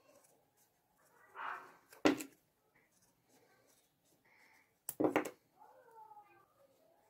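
Sharp knocks of a thin serrated repair piece being worked flat: one about two seconds in and a quick pair about five seconds in, with a softer scrape just before the first.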